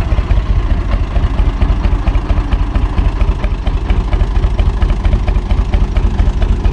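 Universal U445 DT tractor's four-cylinder diesel engine running steadily at low revs as the tractor reverses slowly.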